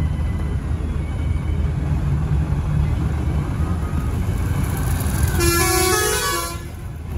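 Vehicle horn sounding once for about a second, its pitch stepping up partway through, over the steady low engine and road rumble of a moving vehicle.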